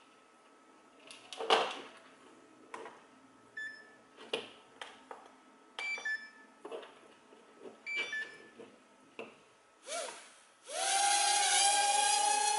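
Scattered clicks and taps of handling, with a few short electronic beeps. About eleven seconds in, the Floureon H101 micro quadcopter's motors spin up into a loud steady high whine of spinning propellers.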